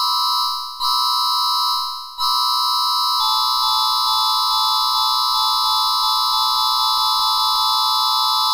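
Emergency Alert System-style electronic alarm tone: a steady, loud chord of several pitches that dies away and restarts twice, then holds, with faint clicks about three times a second in the middle.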